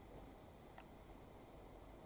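Near silence: a faint steady hiss, with one tiny tick about a second in.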